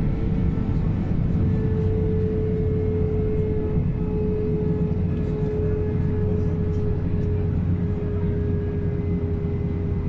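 Cabin noise of an Airbus A320 taxiing: a steady low engine rumble at taxi power with a single held whining tone over it.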